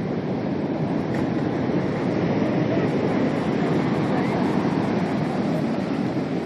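Big ocean waves breaking, a steady rush of surf and whitewater.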